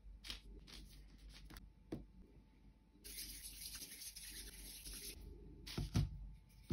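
Hands handling cookie dough on parchment paper: light taps as dough cubes are picked up and a hissy rubbing for about two seconds in the middle, then a dull thump near the end.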